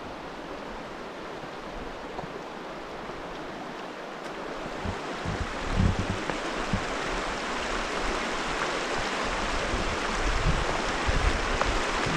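The Virgin River rushing steadily through the canyon, getting louder about halfway through, with low splashing thumps as hikers wade across it.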